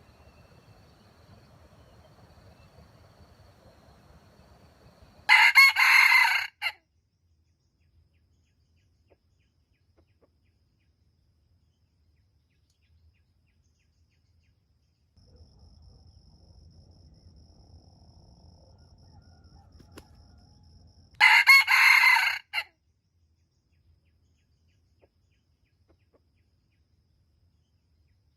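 Jungle fowl rooster crowing twice, each crow short, about a second and a half long, the second coming about sixteen seconds after the first.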